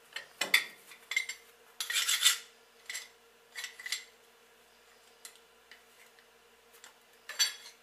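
Metal clinks, knocks and scrapes of a benchtop injection molder's metal mold being slid out of the clamp and handled with gloved hands, in several short clusters, over a faint steady hum.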